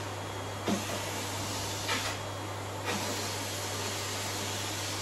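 Vacuum cleaner running steadily. Its hiss drops twice for under a second, and the wand gives a few light knocks.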